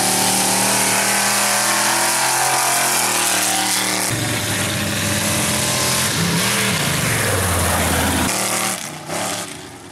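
Lifted Ford F-150 mud truck's V8 engine revving hard at full throttle down a dirt drag strip, its pitch changing several times. The engine drops away about eight seconds in.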